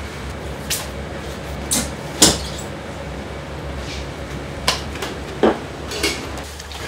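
About six sharp knocks and clacks of things being handled in a kitchen, the loudest a little over two seconds in, over a steady low hum of ventilation.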